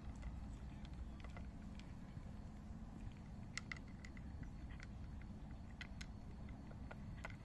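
Cat chewing dry kibble, with irregular small crunches and clicks, over a steady low rumble.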